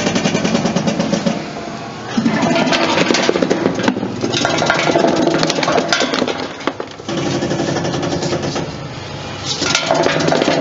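Electric sweet potato slicing machine running, its blade cutting purple sweet potatoes into 5 mm slices with a dense, rapid clatter. The chopping eases off twice and then picks back up.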